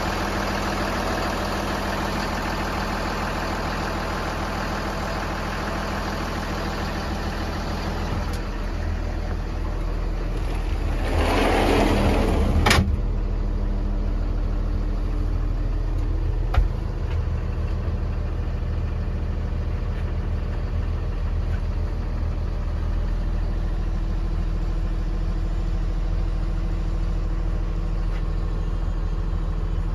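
Tool truck's engine idling with a steady low hum. A rush of noise builds over about two seconds partway through and is cut off by a sharp click.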